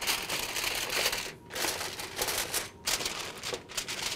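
Aluminium foil crinkling in irregular rustling stretches as it is pressed over a baking dish.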